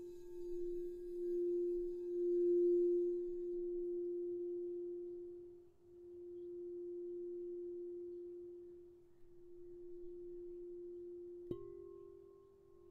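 Crystal singing bowl sung with a wand around its rim: one steady low hum that swells and fades in slow waves. About a second and a half before the end the bowl is tapped once, sharply, and a higher ringing tone joins the hum.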